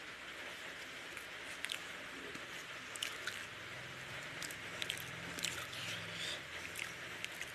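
Wet squishing and sticky clicks from eating rice and egg curry by hand, the fingers working through the rice and curry on a plate. The sharp clicks come every second or so, over a steady hiss.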